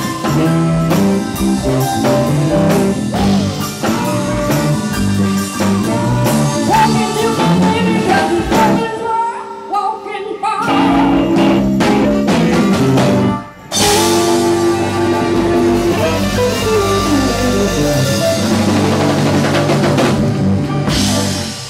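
Live blues-rock band with electric guitar, bass, drums and singing, playing the close of a song. The band drops out briefly about two-thirds in, then comes back with a crash and a long held chord.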